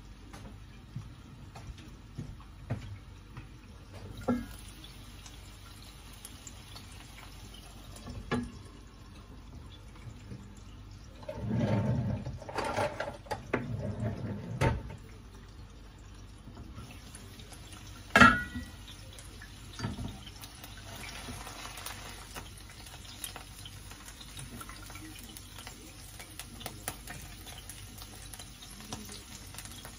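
Kitchen handling sounds with water running: scattered clinks, a spell of clattering a little before halfway, and one sharp loud knock of cookware just past halfway.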